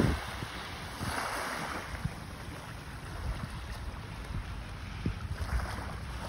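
Wind buffeting the microphone in an irregular low rumble, over small waves lapping at a sandy shore, whose wash swells softly about a second in and again near the end.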